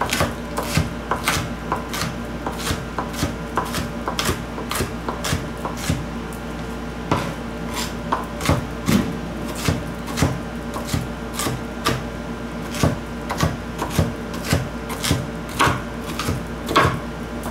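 Kitchen knife chopping a green pepper on a cutting board: a steady run of sharp knife strikes against the board, about two a second.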